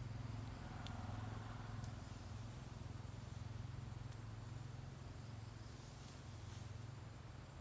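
Faint, steady, high-pitched insect trill, like crickets, over a low steady hum, with a few soft clicks from branches being handled.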